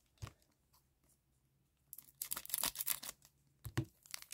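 A foil hockey card pack wrapper being torn open by hand, crinkling and tearing in short bursts starting about two seconds in.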